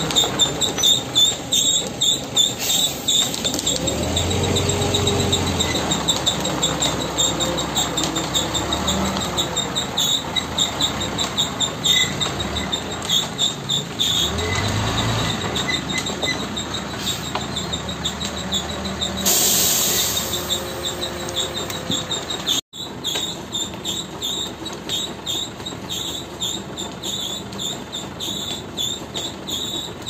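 MAN CLA 26.280 concrete mixer truck's diesel engine running as the truck creeps across the yard, its low rumble swelling twice. Over it, insects chirp in a high, rapidly pulsing steady tone throughout. A brief hiss comes a little before two-thirds of the way in.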